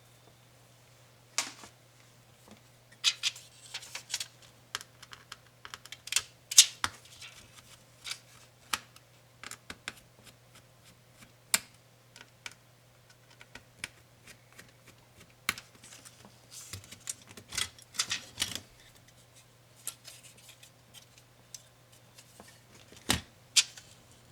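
Irregular clicks and taps of small plastic and metal laptop parts and tools being handled during disassembly of an ASUS ROG Strix GL503VM, with a faint steady low hum underneath.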